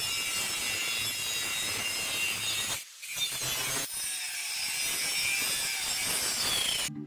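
An angle grinder's thin abrasive cutting disc cuts through a thin metal strip clamped in a vise. It makes a loud, hissing grinding noise that breaks off briefly about three seconds in, then resumes.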